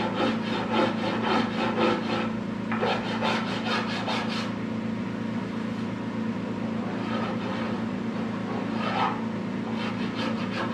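Rapid back-and-forth rubbing strokes of hand-shaping the end of a pine board, rounding its corner to a radius. A burst of strokes stops about four seconds in, and shorter bursts follow near the end.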